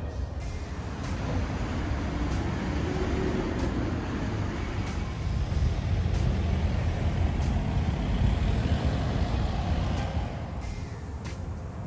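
Road traffic rumble from a busy city street, growing louder from about six to ten seconds in as heavy vehicles pass, then dropping away near the end.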